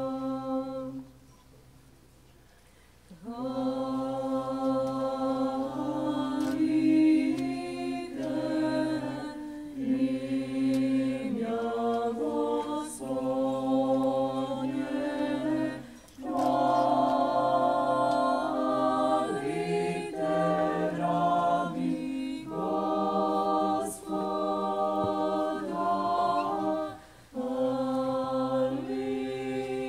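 A church choir singing an Orthodox liturgical chant a cappella, holding sustained chords in several voices. There is a break of about two seconds right at the start and brief pauses around the middle and near the end.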